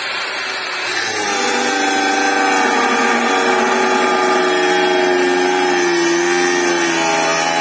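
Cordless angle grinder getting up to speed, then, from about a second in, cutting into metal while pressed hard into the cut to load it. Its steady whine sags a little under the load between about five and seven seconds in, without cutting out.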